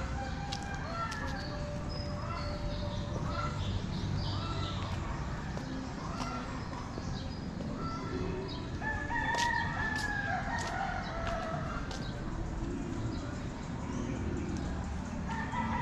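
Rooster crowing once, a long call about nine seconds in that holds and then falls away, over steady low background rumble.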